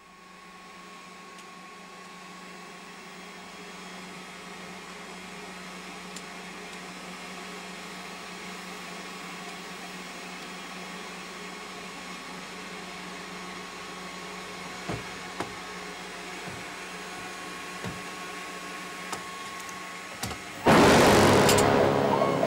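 Canister vacuum cleaner running steadily with a hum and a whine, slowly growing louder, with a few light knocks. Just before the end the vacuum gives way to a sudden loud burst of dramatic music.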